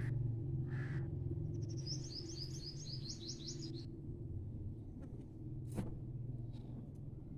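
A bird calls a quick run of high chirps for about two seconds, beginning about a second and a half in, over a steady low hum. A single sharp click comes near the end.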